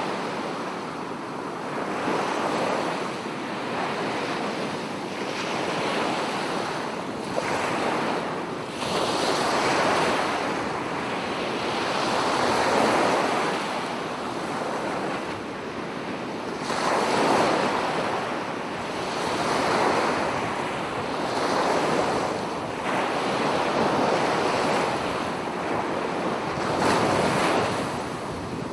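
Ocean surf: waves breaking and washing in one after another, the sound swelling and falling away every two to three seconds.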